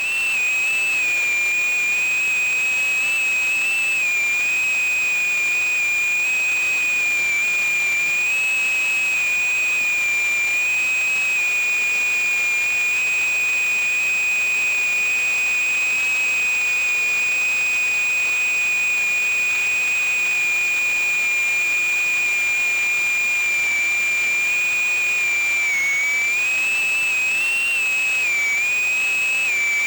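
Tiny brushless motors and propellers of a 78 mm micro FPV drone giving a steady high-pitched whine. The pitch holds nearly level and wavers only slightly, dipping briefly a couple of times near the end as the throttle changes.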